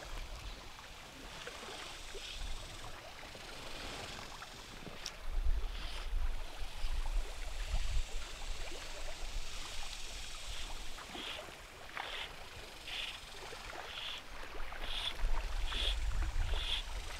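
River water lapping and running around a small boat, with low gusts of wind buffeting the microphone twice. In the second half a row of short high-pitched sounds repeats about once a second.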